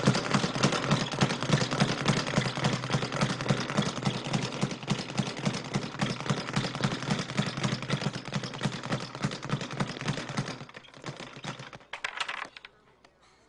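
Boxing speed bag being punched in a fast, steady rattle of hits. The rhythm breaks off about ten and a half seconds in, with a few last scattered hits before it stops.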